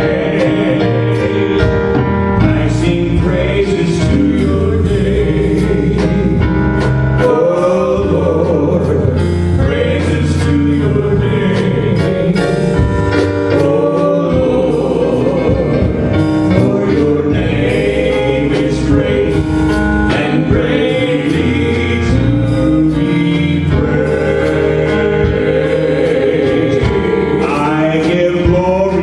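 Gospel worship music: a choir and voices singing over a full band with a steady beat.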